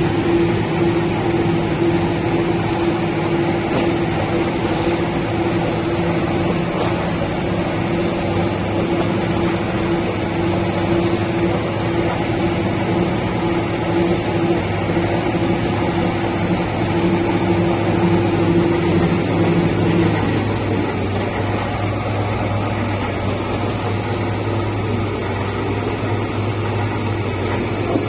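Bar-soap making machinery running steadily: a motor hum and mechanical noise, with a higher steady tone that stops about two-thirds of the way through, leaving a lower hum.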